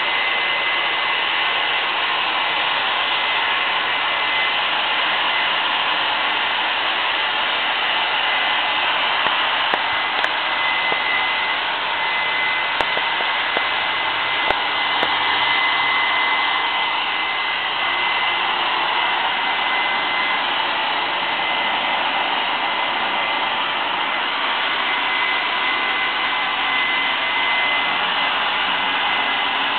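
Handheld hair dryer blowing steadily with a high whine, used to brush-dry a dog's coat. A few faint clicks come about a third to halfway through.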